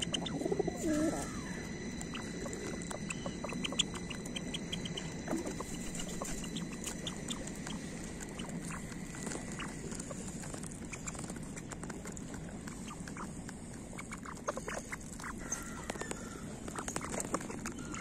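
Mandarin ducks pecking seeds off stone, their bills making many small ticks, with a few short bird calls in the first second and again near the end.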